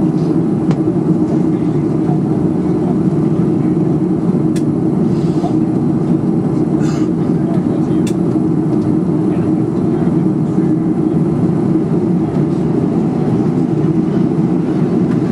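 Steady low cabin drone of a Boeing 737-400 taxiing, its CFM56-3 engines running at low power, heard from inside the cabin over the wing. Two brief sharp clicks come a few seconds apart near the middle.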